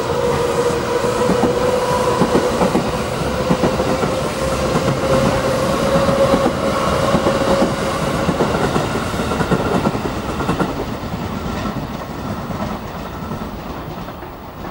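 JR Central 311 series eight-car electric train pulling away and passing close by: a slowly rising motor whine over wheels clacking on the rail joints. It fades away over the last few seconds as the rear car goes by.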